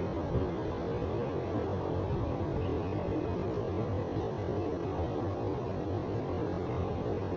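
Steady low hum with an even background hiss, and a brief soft knock about half a second in.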